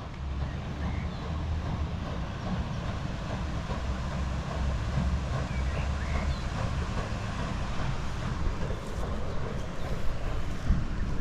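Wind rumbling and buffeting on the microphone over a steady outdoor rushing noise, with a few faint high chirps.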